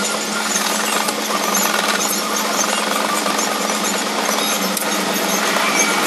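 Pencil scratching and rubbing on paper in continuous shading strokes, over a steady low hum.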